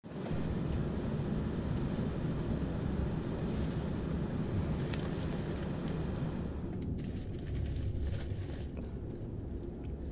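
Steady low rumble and hiss of a turboprop airliner's cabin at the gate, with the propeller outside not yet turning. The higher hiss drops away about seven seconds in, leaving the low rumble.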